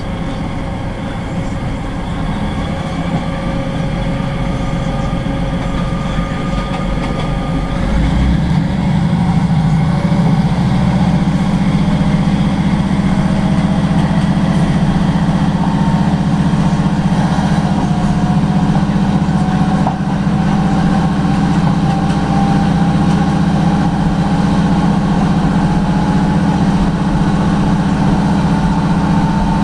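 Class 156 Super Sprinter diesel multiple unit heard from inside the carriage, its underfloor Cummins six-cylinder diesel engine running under power as the train accelerates. About eight seconds in the engine note steps up and grows louder, and a whine rises slowly in pitch as the train gathers speed.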